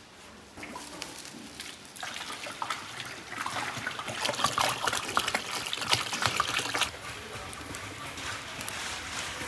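Water poured from a large plastic water-cooler bottle into a big metal cauldron already partly full of water, splashing. It builds over the first few seconds, is loudest in the middle and stops abruptly about seven seconds in.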